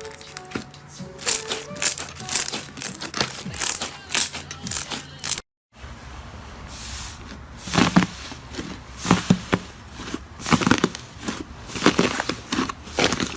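Slime being squeezed and poked by hand, making a quick run of wet crackles, clicks and pops. The sound drops out for a moment about five and a half seconds in, then the popping resumes louder.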